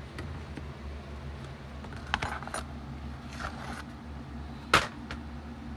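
Scattered sharp metallic clinks and some rustling as the rusty hoe blade soaking in vinegar is handled in its pan, with a small cluster about two seconds in and the loudest single clink near the end, over a steady low hum.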